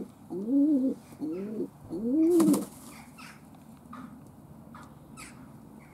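Domestic pigeons cooing: three rising-and-falling coos in the first two and a half seconds, then only faint background.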